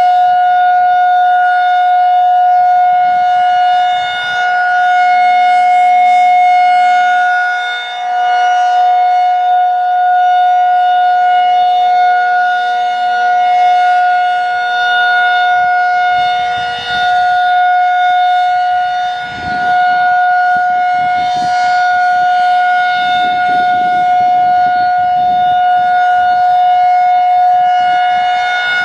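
Federal Signal 2001-SRN rotating electromechanical tornado siren sounding its full alert: one loud, steady high tone that holds its pitch. The tone swells and dips slightly every few seconds as the rotating siren head sweeps past.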